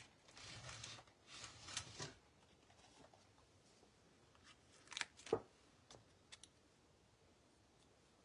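Paper and card being handled on a craft desk: a soft rustle for the first two seconds, then mostly quiet with a few light taps about five to six seconds in.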